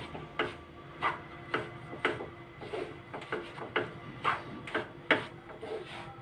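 Wooden spatula scraping and stirring gram flour as it roasts in ghee in a frying pan, about two strokes a second.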